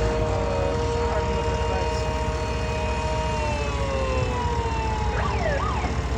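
Several mini sirens sound at once, holding steady tones, then wind down and fall in pitch a little past halfway. Near the end another siren starts a quick rising-and-falling wail. A steady low rumble runs underneath.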